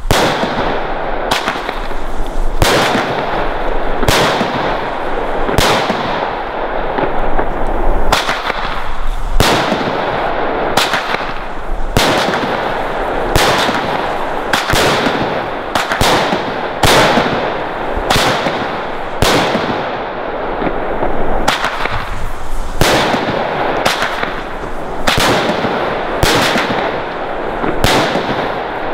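Firework battery firing its shots in steady succession: a sharp bang about every second and a half, over a continuous rushing, crackling noise from the launches and bursts.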